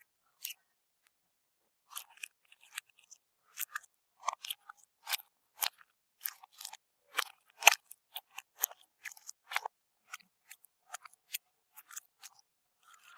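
Crunchy bead-filled slime being squished and worked, giving irregular short crackles and pops, a few a second with brief silences between.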